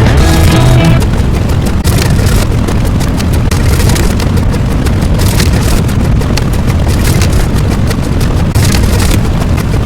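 Loud, continuous rumbling noise with heavy bass and a dense crackle running through it, a sound effect rather than music.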